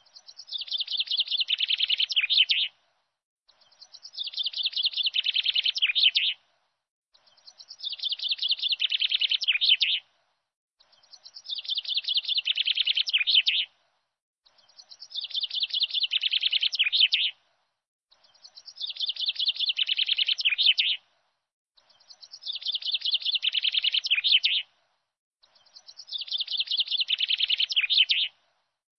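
A short recording of a bird's chirping song played in a loop: a run of rapid chirps about three seconds long that grows louder and then stops, repeated identically about eight times with silent gaps between.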